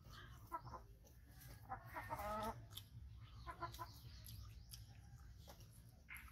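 Chickens clucking faintly, a few short calls, the loudest around two seconds in, over a steady low hum.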